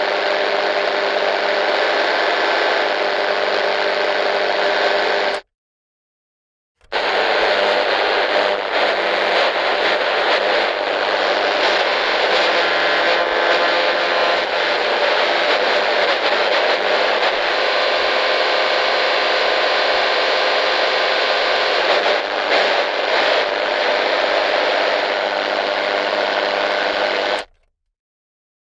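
Radio static, a dense hiss with faint steady tones running through it, in two takes: a short one that cuts off about five seconds in, and after a second or so of silence a longer one that runs about twenty seconds and then cuts off.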